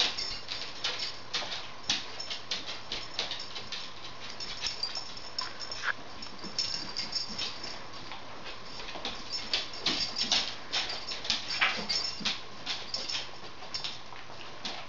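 Two dogs searching a room for hidden treats: a steady patter of small ticks and jingles as they move about and sniff, with an occasional short whimper.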